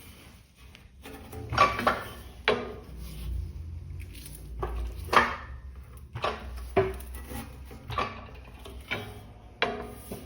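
Sheet steel and a flange brake clanking and clattering as the 16-gauge panel is handled and bent: a string of irregular sharp metal knocks over a low hum.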